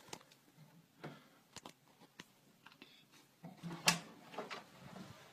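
Quiet small room with scattered faint clicks and rustles, and one sharp click about four seconds in followed by a few softer knocks.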